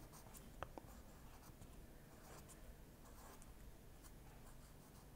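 Faint scratching of a pen on paper as short digits are written, with a couple of light ticks of the pen tip less than a second in.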